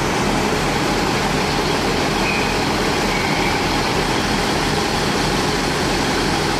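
Diesel passenger train idling at the platform: a steady engine hum with an even rush of noise, unchanging throughout.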